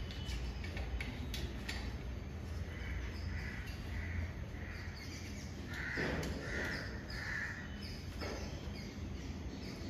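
Crows cawing in two runs of three short caws, over a steady low hum.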